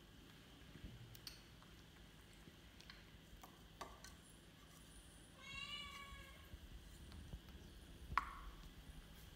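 A baby macaque gives one short, high-pitched call lasting about a second, a little past the middle, with a few faint clicks and taps around it.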